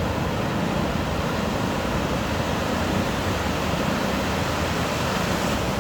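Ocean surf washing onto a beach: a steady, even rush of noise with no distinct breaks.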